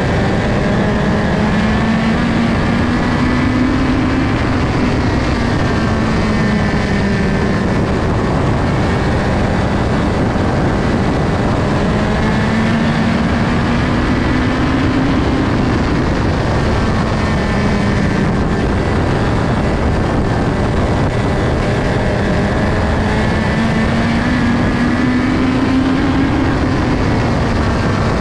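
USAC midget race car's four-cylinder engine at racing speed, heard from the cockpit. The engine note climbs and then drops about every eleven seconds, three times over, as the car goes around the oval.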